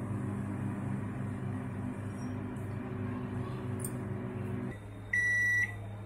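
Microwave oven running with its steady hum while cooking. Near the end the hum drops away as the cooking cycle finishes, and one long high beep sounds to signal the end of the cycle.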